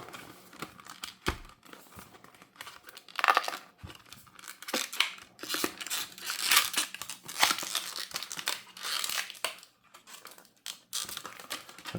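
Hands crinkling and tearing at a cable's packaging, in irregular crackly bursts, pulling at a wrapper that is stuck on.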